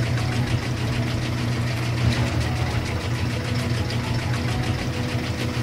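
Electric winch motor and gear drive running steadily: a low hum with fast, fine, even ticking.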